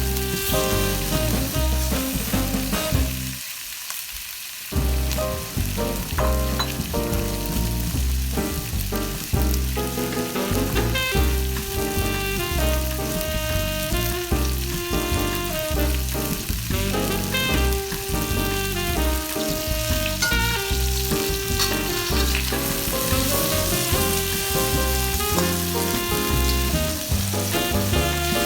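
Food frying and sizzling in a hot pan, with a steady hiss, under background music with a melody and a beat.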